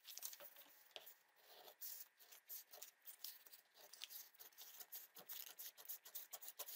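Very faint, irregular snips and paper rustle of scissors cutting a paper pattern.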